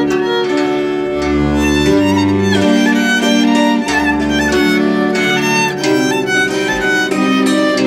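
Music led by a violin playing a klezmer-style melody, over low bass notes and accompaniment.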